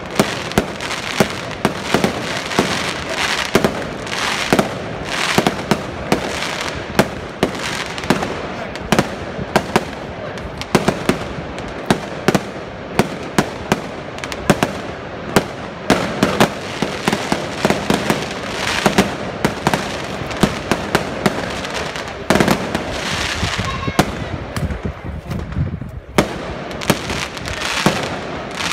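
Aerial firework shells bursting in rapid succession: sharp bangs several times a second over continuous crackling, with a brief lull near the end.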